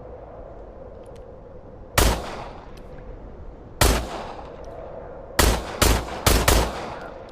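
.45-calibre pistol fired six times: two single shots about two seconds apart, then four quick shots in just over a second. Each shot has a short echoing tail.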